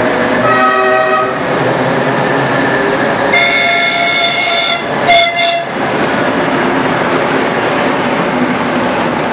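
Passenger coaches of a diesel-hauled special train rolling past at speed, a steady rumble of wheels on rail. A diesel locomotive's horn sounds a shorter note near the start, then a long blast about three seconds in and two short toots right after it, the loudest sounds.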